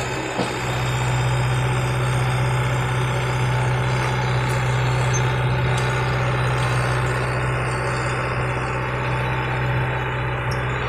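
Caterpillar bulldozer's diesel engine running at a steady speed, with a deep even hum and one small click about half a second in.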